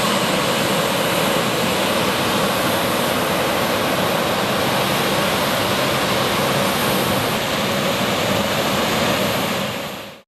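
Embraer 195 jet's twin GE CF34-10E turbofans running at idle as the airliner taxis slowly. A steady loud whooshing hiss with a faint held whine fades away over the last second.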